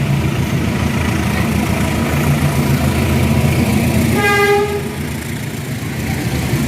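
Train running with a steady low rumble, and one short horn toot about four seconds in.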